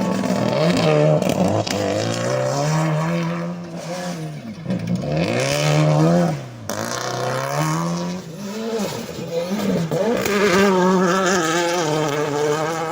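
Rally car engine revving hard. Its pitch climbs and drops several times as it accelerates and changes gear.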